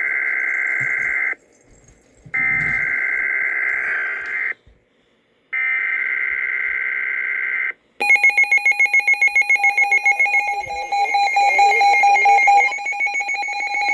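Weather radio receiving a Weatheradio Canada alert: three screeching two-tone SAME data bursts, each about two seconds long with a second of silence between them, announcing a High Wind Warning. About eight seconds in, a loud, piercing electronic alert tone starts, pulsing rapidly at first and then holding steadier.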